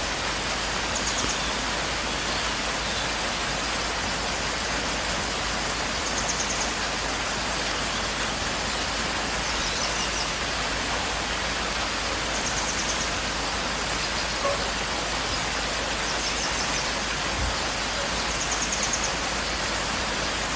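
Waterfall rushing: a steady, even wash of falling water. Over it, a short, high, rapid trill sounds about every two to four seconds.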